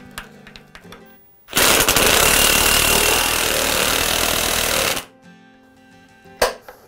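Cordless impact driver hammering a screw home into the bench's vise mounting, a loud rapid rattling that runs for about three and a half seconds and stops abruptly. Faint small clicks from the screw being fiddled in by hand come before it.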